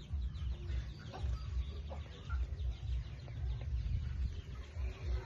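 Domestic poultry calling in short, scattered calls, over a steady low rumble.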